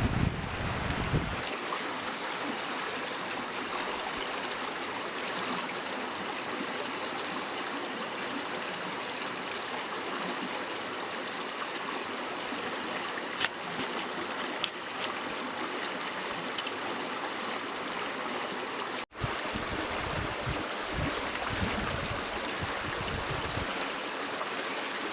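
River water rushing steadily over its bed, with wind buffeting the microphone near the start and again after a brief break about two-thirds through.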